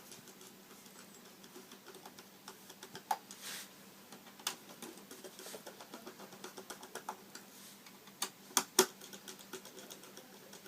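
Irregular light clicks and taps of hands working on the iMac's memory access panel and its screws, with a few sharper knocks and a brief rustle.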